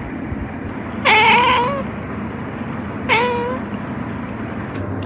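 Domestic cat meowing twice, about a second in and again about three seconds in, the second meow shorter than the first, over steady background noise.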